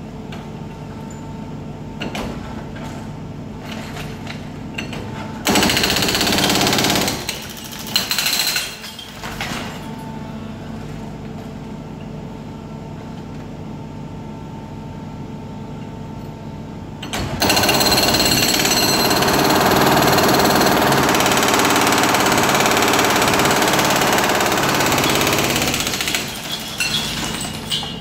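Hydraulic breaker on a Brokk 100 remote-controlled demolition robot hammering into a reinforced-concrete bridge deck. It comes in spells: two short ones around six and nine seconds in, and a long run of about nine seconds in the second half. Between them the machine runs with a steady hum.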